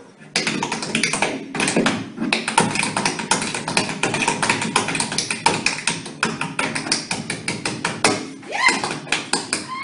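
Tap shoes striking a wooden stage floor in fast tap-dance steps, a rapid run of sharp taps with a short pause about eight seconds in.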